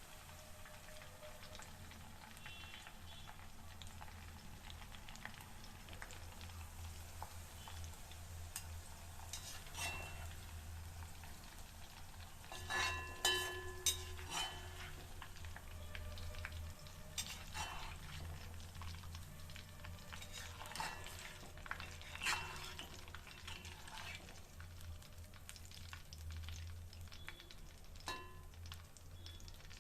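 Brinjal (eggplant) pieces frying in hot oil in a kadai with a steady sizzle, while a metal spoon stirs and scrapes the pieces and clinks against the pan several times as they are lifted out. The loudest clinks come about halfway through.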